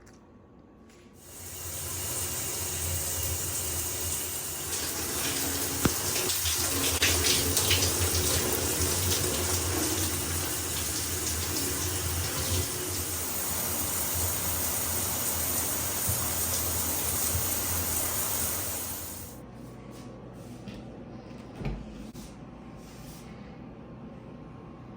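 Water running from a tap into a sink, a steady rush that starts about a second in and shuts off after roughly eighteen seconds; a single soft knock follows.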